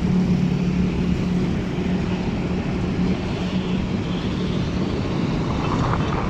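Train passing on the adjacent track: a steady rumble with a low engine hum.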